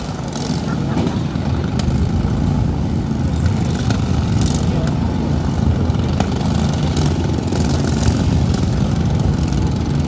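Small lawn mower engines running in a lawn mower demolition derby, a steady rough drone.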